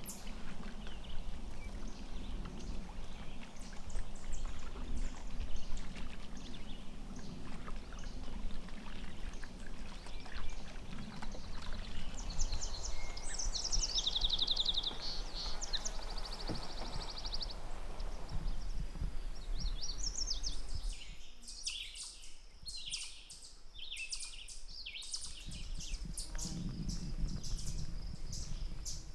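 Water splashing and dripping from a canoe paddle stroking through lake water, with birds singing; a bird gives fast, high trills about halfway through. About two-thirds of the way in, the water noise stops and only the birds' short high chirps remain.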